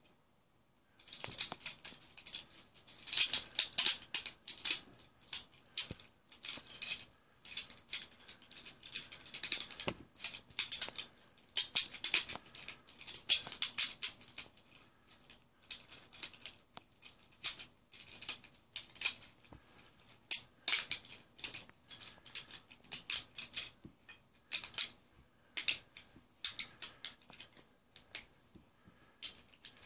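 Plastic pieces of a Gordian's Knot interlocking puzzle clicking, rattling and scraping against each other as they are slid apart by hand: an irregular run of many small clicks starting about a second in.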